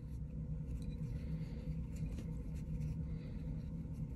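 Faint rustling and small ticks of a folded cotton fabric strip being pushed through a woven fabric star held by plastic sewing clips, over a steady low hum.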